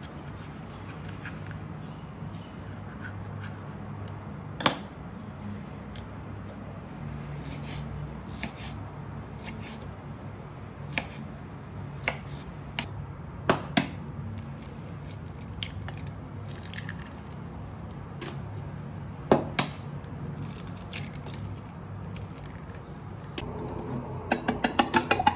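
A knife slicing a green bell pepper on a wooden cutting board: soft cuts with a few sharp knocks as the blade meets the board. Near the end, chopsticks start beating egg in a plastic measuring jug, a fast, even clatter of many strokes a second.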